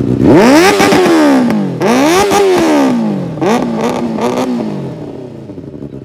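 2017 Benelli 600i inline-four engine with a replica M4 twin-tip exhaust, revved from idle. Two long throttle blips climb sharply and fall back, then two shorter quick blips follow, and the engine drops back to idle near the end.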